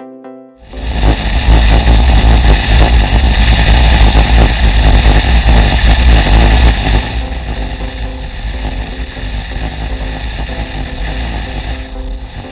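BMW R1150GS Adventure motorcycle riding over a corrugated gravel road: a loud, rough, rattling rumble from the corrugations, noisy throughout. It drops noticeably about seven seconds in.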